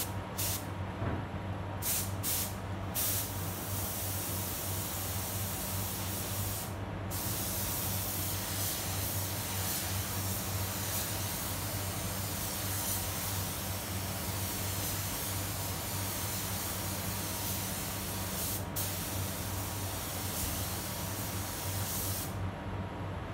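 Gravity-feed compressed-air spray gun spraying paint onto a car panel. A few short trigger bursts come first, then long continuous hissing passes with a brief break about seven seconds in and a short one near nineteen seconds, cutting off shortly before the end. A steady low hum runs underneath.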